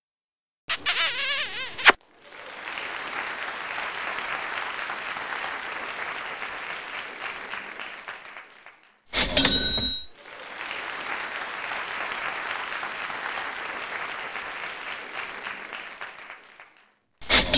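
Applause in two stretches of about seven seconds each, each rising and fading away. Between them, a second or so after the start, and again near the end come short, loud ringing, bell-like sounds.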